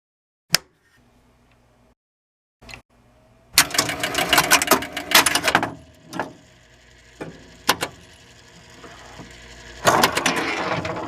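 Mechanical clicking and rattling: a couple of single clicks, then a dense run of rapid clicks and rattles, a few more single clicks, and a louder, busier clatter near the end.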